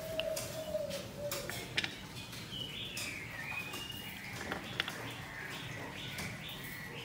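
Birds calling and chirping in the background, with a low drawn-out note near the start and higher chirps and glides from about halfway on. A few sharp metal clicks come from a wrench fitting a bicycle pedal onto the crank, the loudest about two seconds in and again near five seconds.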